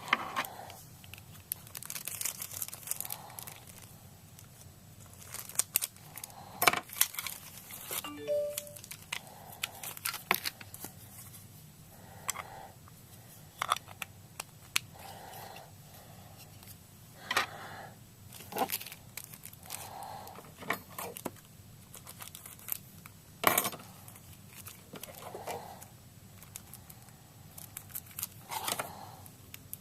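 Packaging being torn open and crinkled by hand while a model airliner is unpacked: irregular rustling and tearing bursts mixed with sharp clicks and knocks of handling.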